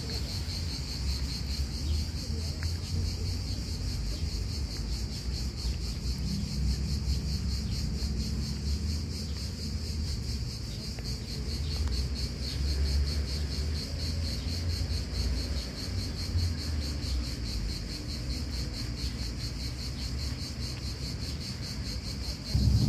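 Steady, high-pitched insect trill with a fast, even pulse, over a low rumble. A brief louder low bump comes near the end.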